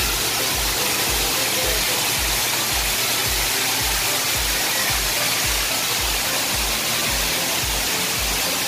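Steady rush of a waterfall pouring down a rock face. Background music plays over it, with a bass beat thumping about twice a second.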